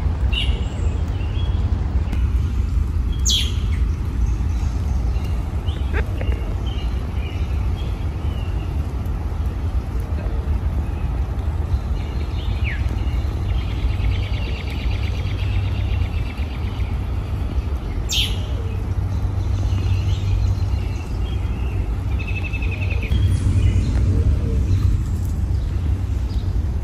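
Small birds chirping and trilling over a steady low rumble. Twice a sharp, high, downward-sweeping call stands out.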